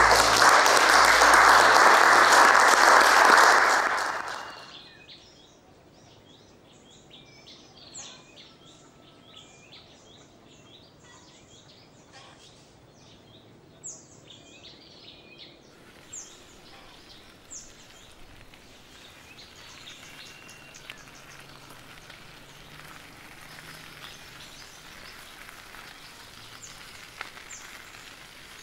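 Audience applauding for about four seconds, then dying away. After that, birds chirp and call at intervals over a faint, steady outdoor background.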